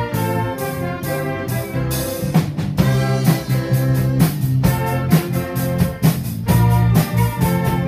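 A school orchestra of woodwinds, brass and cellos playing a lively rock-style arrangement, with regular percussion hits marking the beat.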